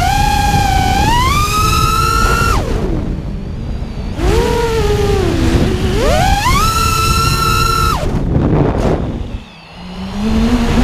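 FPV racing quadcopter's motors and propellers whining, the pitch climbing and holding as the throttle is opened, then falling away as it is cut, twice. Near the end the throttle drops almost to nothing for a moment before the whine climbs again.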